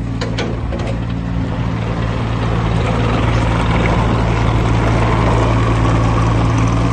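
Doosan DX27Z mini excavator's diesel engine running steadily, with a few sharp knocks in the first half second and a higher whine that builds from about three seconds in and holds.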